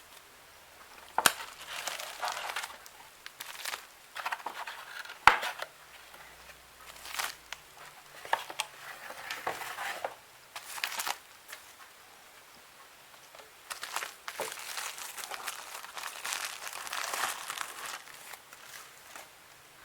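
Packaging of a graphics card being handled: irregular bursts of crinkling wrapping, with sharp clicks about one and five seconds in and a longer run of crinkling near the end.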